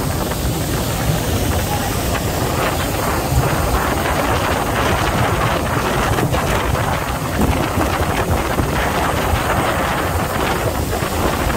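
A fast boat under way: steady wind buffeting the microphone and the wake rushing along the hull, over a low engine drone.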